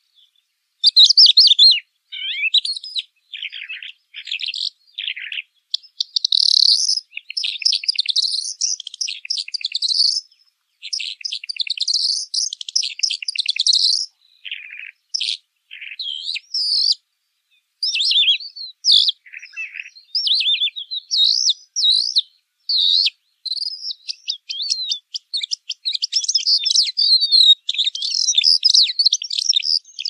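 Calandra lark singing: a long, high-pitched run of fast, varied chirps, trills and buzzy notes, broken by a few short pauses.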